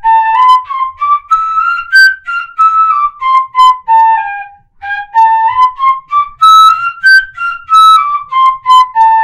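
Wooden pífano (fife in C) playing a scale up an octave and back down, twice, in quick groups that mix tongued and slurred notes. It ends on a held low note.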